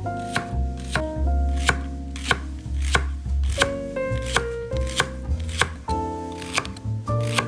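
Chef's knife slicing a leek into rings on a bamboo cutting board: crisp, regular cuts knocking on the board, about two to three a second. Background music with bass and a melody plays underneath.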